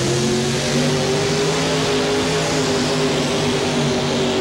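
Mini rod pulling tractor's supercharged engine running flat out at high revs as it hauls the sled down the track, a loud, steady note whose pitch holds nearly level.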